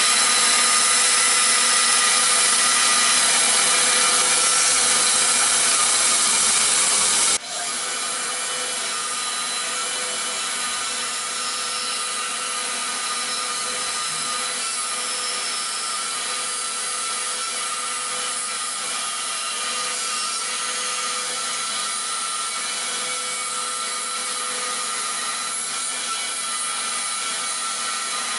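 Band saw running and cutting through a plastic cutting board: a steady saw noise with a fixed motor tone. About seven seconds in, the sound drops abruptly to a lower, equally steady level.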